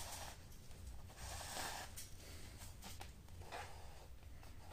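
Faux suede lace drawn through the punched stitching holes of a leather bag: faint scratchy rustles of the cord rubbing through the leather. The longest rustle comes about a second and a half in, followed by a few short ones.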